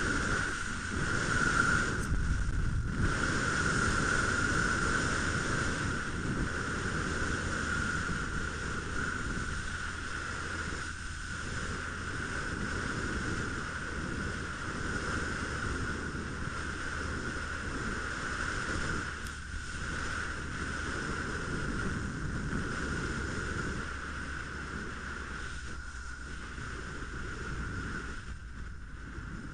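Wind rush and road noise from a moving motorcycle, muffled by the helmet camera's tape-covered microphone, with a steady high whine running through it. It dips briefly a few times and eases off near the end as the bike slows.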